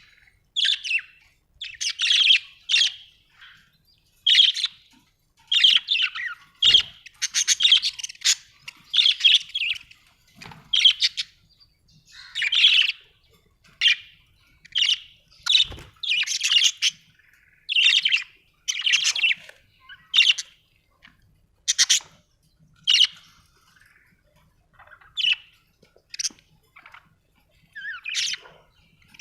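Budgerigar chirping in short, high bursts, about one or two a second with brief gaps between them. Two sharp clicks come through, about a third and about halfway in.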